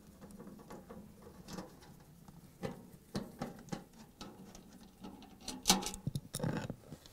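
Phillips screwdriver backing screws out of a refrigerator's sheet-metal rear access panel: a run of small irregular clicks and scrapes. Near the end come a few louder metallic clatters as the panel is taken in hand.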